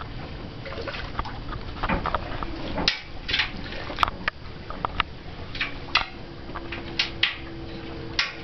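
Irregular knocks, clanks and scuffs of shoes and hands on a metal ladder as people climb down a narrow shaft. A steady low hum comes in about halfway through.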